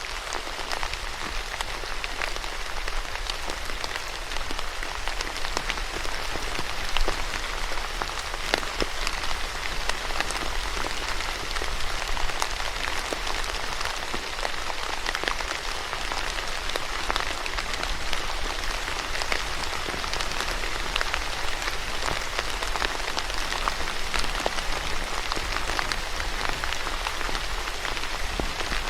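Steady rain falling on a surface, a continuous hiss dotted with many individual drop taps.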